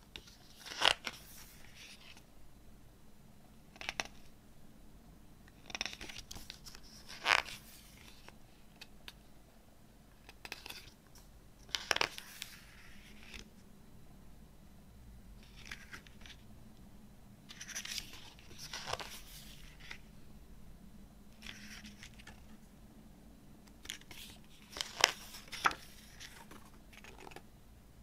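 Pages of a glossy CD booklet turned by hand: a short papery swish and flick every few seconds, with quiet handling between.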